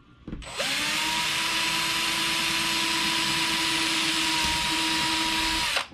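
Small power drill spinning up and running at a steady speed for about five seconds as it drills a mounting hole through an RC truck's plastic body, then stopping abruptly.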